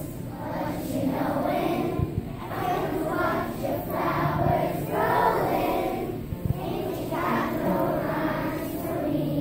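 A large group of young children singing a song together, in phrases about a second long.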